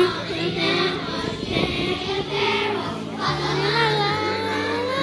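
A song playing, with a sung melody of long held notes over steady bass notes.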